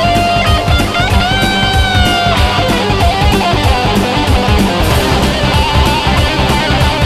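Rock music with electric guitar over fast, steady drumming; a held lead guitar note bends about a second in.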